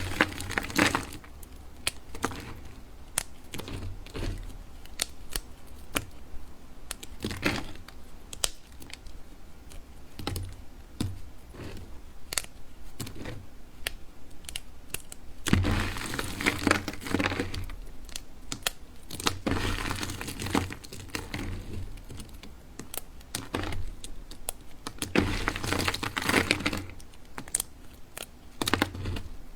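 Dry bar soap being cut with a knife: sharp crisp clicks and cracks, with three longer runs of crunching about halfway through and near the end.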